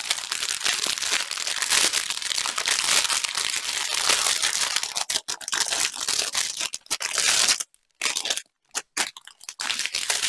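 Clear plastic bag crinkling as it is handled and pulled off a bundle of small zip bags of diamond-painting drills. The crinkling breaks off in short gaps about three-quarters of the way through, then starts again near the end.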